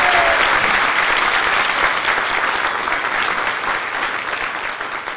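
An audience applauding, the clapping slowly fading out.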